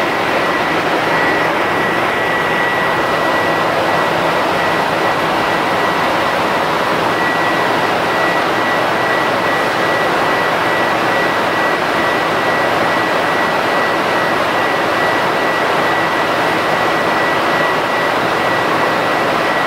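Industrial production machinery running in a factory hall: a steady loud roar with a constant high-pitched whine held on one note.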